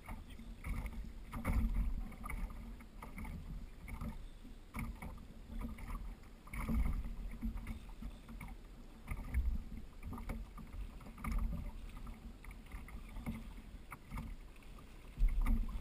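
Water slapping and lapping against a fishing kayak's hull, in irregular surges every second or two.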